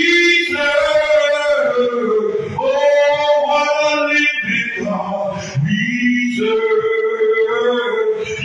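A man singing a gospel chorus, holding long, drawn-out notes that slide up and down in pitch, with only short breaths between phrases.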